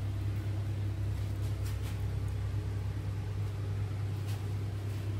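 A steady low machine hum with a light hiss over it, unchanging throughout.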